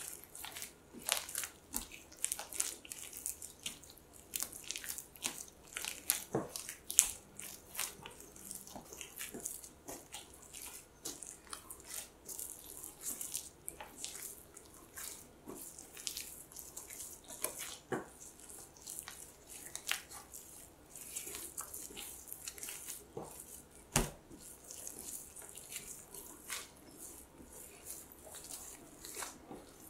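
Sticky, enriched bread dough kneaded by hand in plastic gloves on a wooden board: irregular wet squelching, smacking and tearing sounds as the dough is smeared across the board and peeled off it, with a couple of louder knocks.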